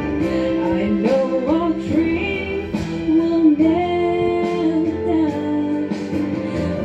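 A woman singing solo into a microphone in long, held notes over instrumental accompaniment.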